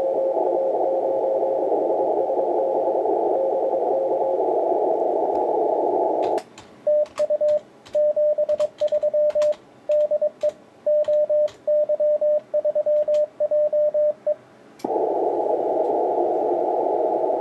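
6-metre CW receiver audio from a FLEX-5000 transceiver: band hiss through a narrow CW filter with a faint Morse signal in it. About six seconds in the hiss cuts out, and the transceiver's sidetone keys Morse at about 25 words per minute for some eight seconds with sharp clicks alongside: the operator is sending, with break-in muting the receiver. Then the receiver hiss returns.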